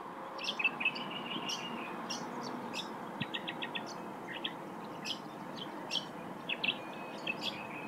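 Several birds chirping and calling in a dawn chorus: many short, high chirps and a quick run of clicking notes about three seconds in, over a steady low hiss.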